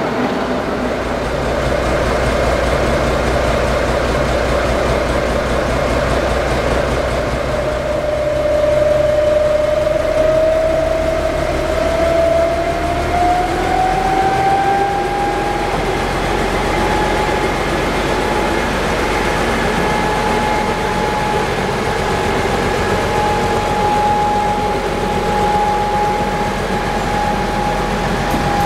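Diesel shunting locomotive engines running steadily. In the second half a Köf II small diesel shunter pushes coaches along the track. A thin whine rises in pitch about halfway through and then holds steady.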